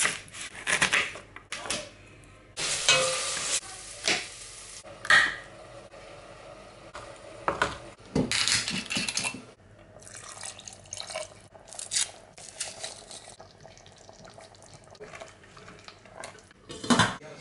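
A run of kitchen cooking sounds: a knife cutting an onion on a wooden chopping board, a bottle being opened, clinks and knocks of pans and utensils, and a spoon stirring meat sauce in a steel saucepan.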